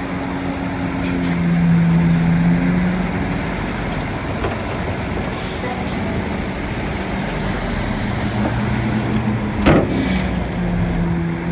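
Bulldozer engine running steadily under work, with a sharp clank about ten seconds in.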